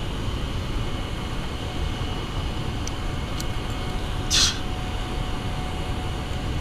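Steady low rumble of rushing water from the open dam spillway, with a short hiss about four and a half seconds in.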